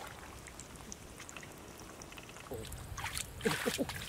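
Shallow water and mud in a flooded rice paddy being stirred and splashed, a soft sloshing at first. About two and a half seconds in come a run of louder splashes and knocks, with a few short low sounds that slide in pitch near the end.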